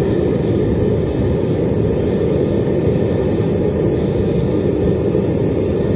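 Foundry furnace burner running with a steady, low rushing noise as it heats a crucible.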